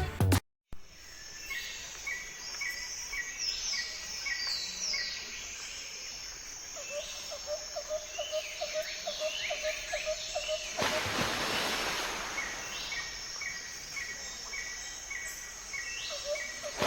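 Outdoor garden ambience with several birds calling: quick gliding high notes, and runs of short chirps repeated evenly several times a second. A steady high insect drone runs under them, and a short rush of noise comes about eleven seconds in.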